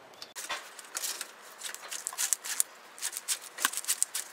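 Corrugated plastic wiring loom and wires being handled and zip-tied under a truck: irregular quick rustles and clicks.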